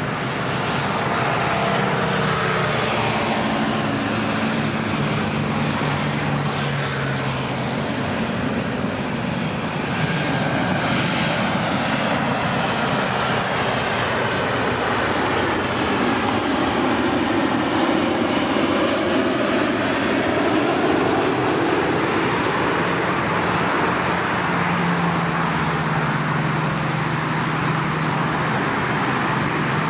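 Boeing 737 airliner's jet engines passing on landing approach: a loud, steady rushing roar that sweeps in pitch through the middle as the jet goes by, with a low steady hum underneath near the start and end.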